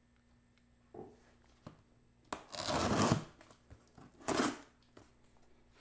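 Packing tape on a cardboard box being slit open with a hand tool: a long scraping tear about two and a half seconds in and a shorter one about four seconds in, with a few light knocks on the cardboard.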